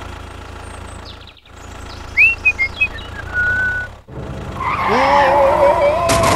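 Tractor engine sound effect running steadily under a toy tractor, broken by two brief dropouts. A few short chirping whistles come in the middle, and a wavering, rising tone comes in over the last second and a half.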